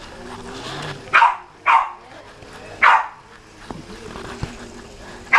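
Pembroke Welsh corgi barking: two quick barks about a second in, a third near the middle and one more at the end.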